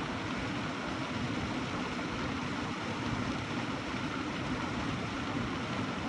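Waterfall's falling water rushing in a steady, even roar.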